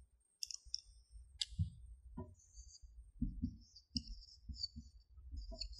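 Marker pen writing on a whiteboard: faint scattered taps and clicks, then from about halfway in a run of short high squeaks as the strokes are drawn.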